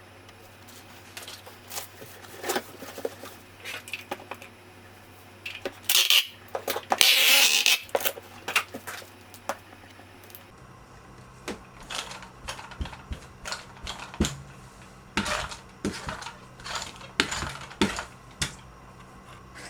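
Small objects being handled: irregular clicks, taps and light clatter, with a louder rustling, hissing burst about six to eight seconds in.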